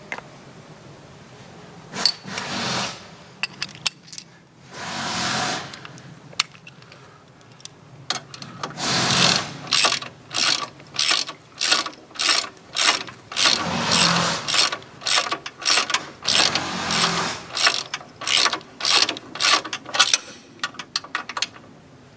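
Socket ratchet wrench clicking as bolts are run in on a steering box frame brace. Short bursts of quick clicks come about 2 and 5 seconds in. From about 9 seconds there is a steady run of back-and-forth strokes, two or three a second, which stops near the end.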